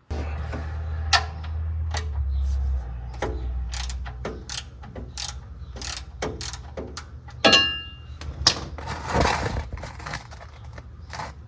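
Hand ratchet clicking in separate strokes as the engine oil pan's drain plug is loosened, with one ringing metallic clink of a tool about two-thirds of the way through.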